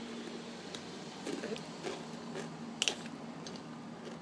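A person chewing crunchy Takis rolled tortilla chips close to the microphone: scattered crunches, with one sharper crack near the three-second mark.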